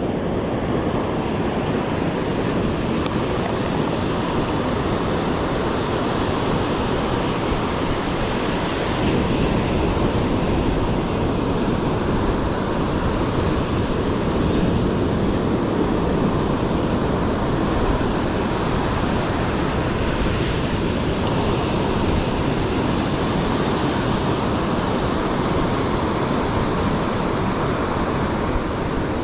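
Ocean surf breaking and washing on the shore: a steady rushing noise without pause, likely with some wind on the microphone.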